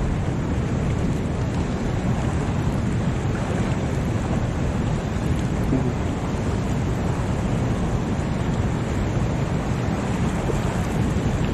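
Fast, churning water rushing through a spillway inlet, with wind buffeting the microphone; a steady, even rush that does not change.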